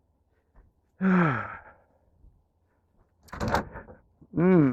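A man's long sigh, falling in pitch, about a second in. Later a short knock with scuffling, and a brief vocal sound near the end.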